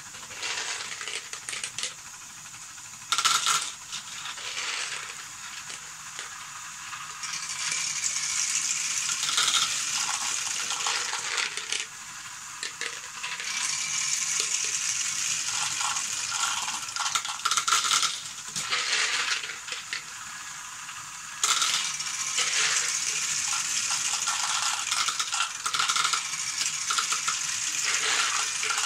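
LEGO Technic Great Ball Contraption module running: small plastic balls carried up under a moving chain and clattering and rolling down zigzag plastic chutes, a steady rattle full of sharp clicks that grows louder in stretches as groups of balls come down.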